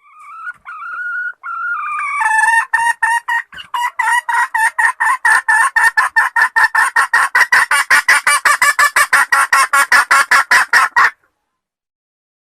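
Wild chicken (red junglefowl) calling: a drawn-out, wavering note, then a fast, even run of clucks at about five a second that cuts off suddenly.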